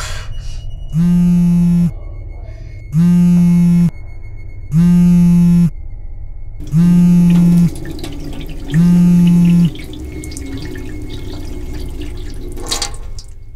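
A smartphone vibrating against a wooden tabletop for an incoming call: five buzzes of just under a second each, about one every two seconds. After the buzzing stops, water runs from a tap that is shut off near the end.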